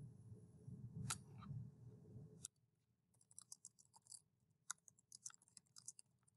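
Faint typing on a computer keyboard: quick, irregular key clicks start about three seconds in. Before that, a low rumble with one sharp click cuts off suddenly.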